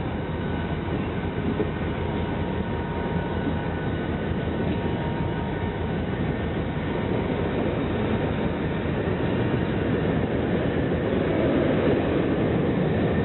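Freight train rolling past, a steady rumble and rattle of wheels and cars that grows a little louder toward the end.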